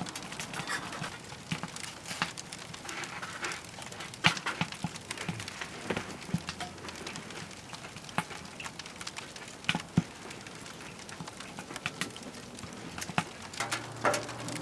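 Wood fire crackling in a camp wood stove, with irregular sharp pops and cracks over a low hiss.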